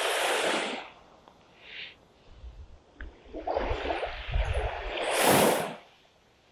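Wind gusting across the microphone and small waves washing on the sand: a few short swelling rushes of noise, the loudest near the end, with low buffeting in the middle.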